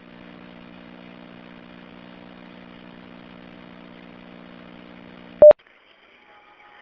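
Steady electrical hum on an open telephone line, then a single short, loud electronic beep about five and a half seconds in: the alert tone of a police dispatch radio channel.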